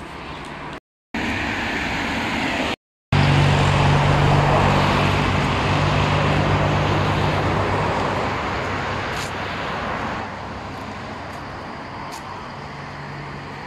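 Road traffic: a motor vehicle passes close by. Its engine hum and tyre noise swell about three seconds in, then slowly fade. The sound drops out twice briefly before the swell.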